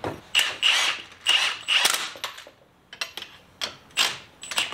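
Cordless impact wrench run in short trigger pulls on the threaded rods of screw-type spring compressors, squeezing a coil spring on a car strut. About five quick bursts, a pause of about a second, then a few clicks and three more bursts.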